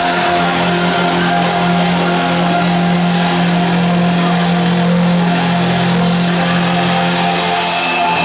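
Live synthwave music over a concert PA: a loud, steady low synth drone with held higher notes above it.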